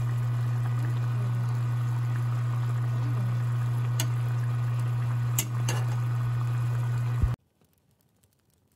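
Pork galbi and kimchi stew bubbling in a pot over a loud steady low hum, with a few sharp clicks of a spoon against the pot. The sound cuts off suddenly about seven seconds in.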